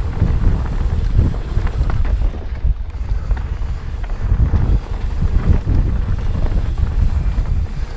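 Wind buffeting the microphone of a helmet camera on a moving mountain bike, over a steady low rumble and irregular jolts as the bike rolls over a rough dirt trail.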